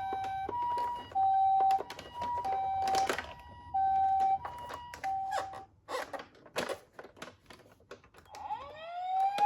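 Toy ambulance minicar's electronic siren playing the two-tone ambulance 'pee-poh' pattern, a higher and a lower note alternating about every half second. It stops about halfway through, giving way to scattered clicks and rattles. Near the end a rising siren wail starts and levels off into a steady tone.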